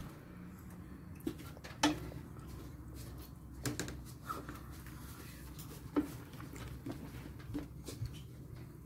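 Faint, scattered light knocks and clinks of a utensil against a cooking pot, over a low steady hum.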